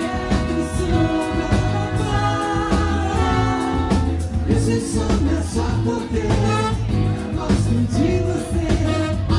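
Live Brazilian samba band playing, with a singer over bass, drums, percussion, keys, guitar and a horn section. The bass and drums carry a steady, full groove with held notes above.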